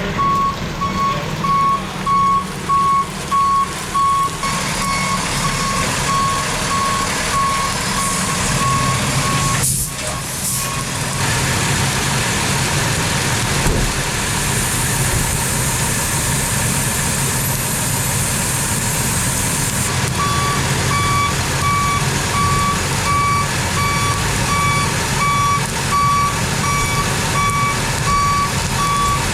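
A heavy truck's backup alarm beeping steadily over its running engine. The beeping stops for about ten seconds partway through, then starts again.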